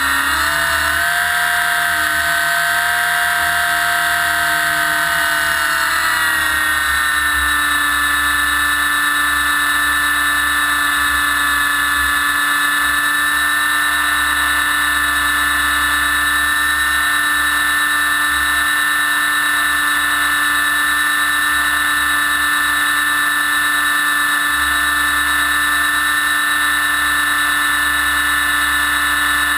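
Align T-Rex 600 electric RC helicopter in flight, heard close up from on board: the brushless motor and gear train whine under the rotor noise. The whine's pitch wavers for the first several seconds, then holds steady at a constant head speed.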